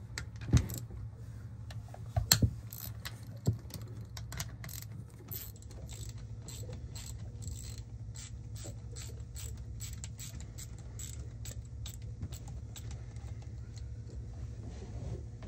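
Hand socket ratchet clicking in a steady run of quick clicks, about three to four a second, after a few sharp metal knocks in the first seconds, over a steady low hum.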